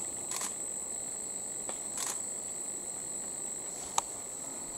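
Steady high-pitched insect drone of the rainforest. Over it come a few short rustling clicks and one sharp click about four seconds in.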